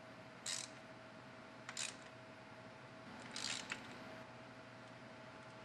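Hand ratchet clicking in three short bursts as the transmission pan bolts are snugged up, over a faint steady hum.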